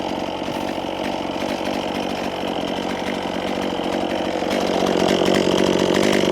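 Chainsaw running under load, bucking a felled spruce log in half; it grows louder about two-thirds of the way through.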